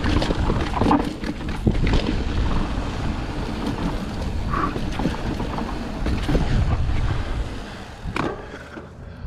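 Mountain bike riding over a dirt trail: tyre rumble with frequent knocks and rattles from the bike over bumps, dying down near the end.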